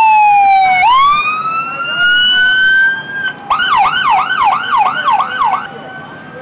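Police car siren sounding a slow wail that falls and then rises, switching about three and a half seconds in to a fast yelp of about three sweeps a second, which cuts off near the end.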